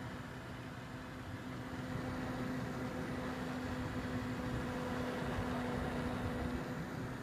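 Coil whine from the chokes of an ASUS Strix GTX 970 graphics card: a steady tone over a hiss of cooling fans, growing louder about two seconds in.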